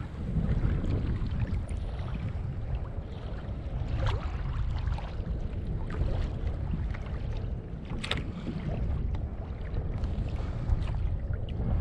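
Wind buffeting the microphone over water slapping against a kayak hull, a steady low rumble, with a few sharp ticks about four and eight seconds in.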